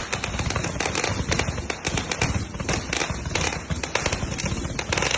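A 'Shotgun' firework firing a rapid, unbroken stream of sharp bangs and crackles, several a second.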